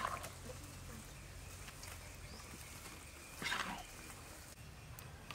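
Metal spatula scraping a steel wok as stir-fried noodles are scooped out onto a tray: a short scrape at the start and another about three and a half seconds in, over a faint low hum.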